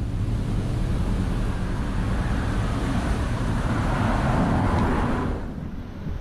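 A car passing close by on the street: its tyre and road noise builds to a peak and drops away quickly a little after five seconds in. Wind rumbles on the microphone underneath.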